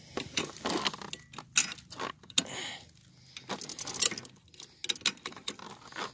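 Irregular metal clinks and rattles from the pedal car's roller chain and parts being handled during a chain repair.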